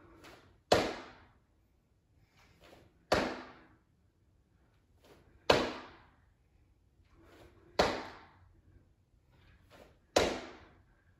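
Sneakered feet landing on a wooden floor from jump squats: a sharp thud with a short echo about every two and a half seconds, five in all, with much fainter sounds between the landings.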